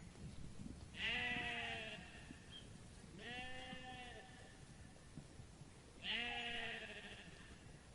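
Sheep bleating three times, each a wavering "baa" about a second long, spaced a couple of seconds apart.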